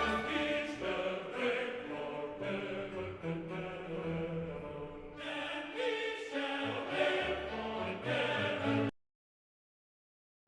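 Background music of sustained, layered held notes that cuts off abruptly about nine seconds in, leaving dead silence.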